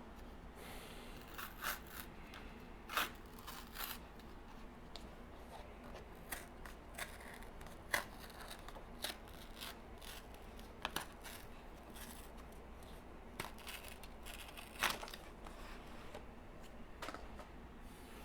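Plastic food packaging being handled and opened: faint, irregular clicks, snaps and scrapes, the sharpest about 3, 8 and 15 seconds in.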